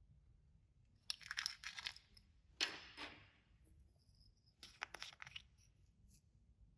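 Clear slime being squished and folded by hand with glitter mixed in: three short bouts of crackling, clicking and squishing.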